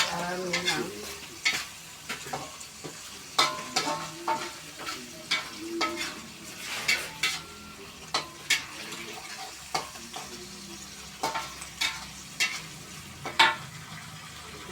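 Tomato sambal being stir-fried in a pan: a spatula scraping and knocking against the pan at an irregular pace, with sizzling underneath.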